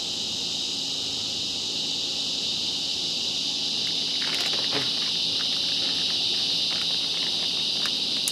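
Steady, loud chorus of insects chirring. From about four seconds in, plastic bait packaging crinkles and rustles in hand.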